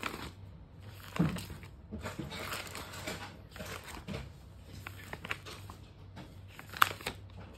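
Plastic sheet-protector pages of an art folder being turned and handled, crinkling and rustling irregularly, with sharper crackles about a second in and near the end.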